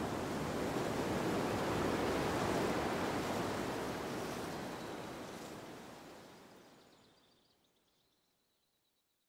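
A steady rushing noise, like wind, that swells a little and then fades away to silence about eight seconds in.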